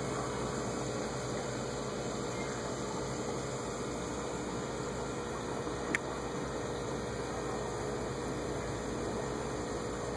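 Aquarium filter and air bubbles running steadily, a constant hiss of bubbling water over a low hum. A single sharp click about six seconds in.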